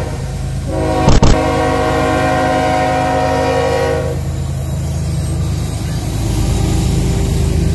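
CSX ES44AH diesel locomotive sounding its horn in a steady multi-tone chord as it passes, with a single brief loud thump about a second in. The horn stops about four seconds in, leaving the low rumble of the locomotive and freight cars rolling by.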